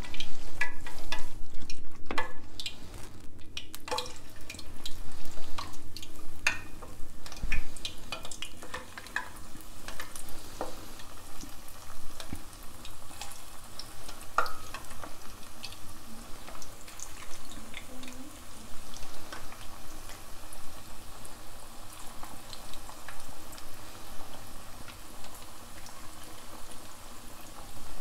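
Gram-flour pakora batter with potato, onion and rocket leaves frying in hot oil in a kadhai: a crackling sizzle. It is loudest and busiest in the first several seconds as the batter goes into the oil, then settles into a steadier fizzing crackle.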